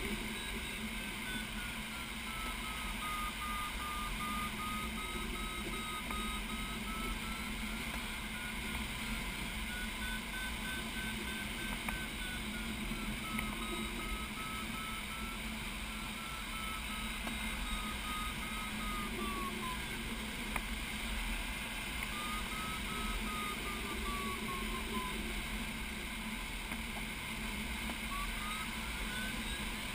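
Glider's electronic variometer sounding a beeping tone whose pitch slowly wavers down and up, dropping out twice and rising near the end as the glider meets sinking and rising air. Under it, the steady rush of airflow over the cockpit canopy.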